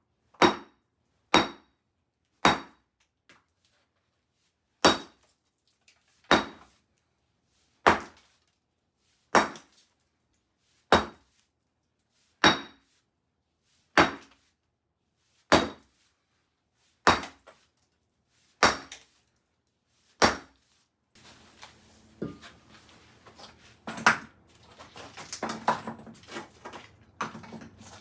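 Repeated hammer blows, about one every second and a half, each with a short metallic ring. After about twenty seconds they give way to irregular knocks and clatter over a low steady hum.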